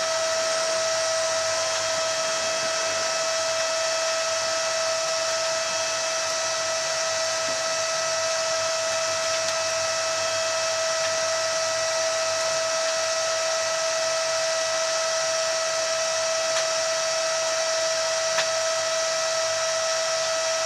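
Steady electric whine inside the cabin of an automated electric shuttle driving at a steady low speed: one constant tone with a weaker tone above it, over an even hiss.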